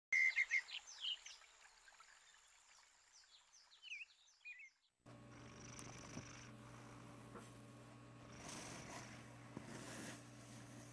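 Quick, short, high chirps for about five seconds. Then, after an abrupt cut, a cat snoring softly in slow breaths over a steady low hum.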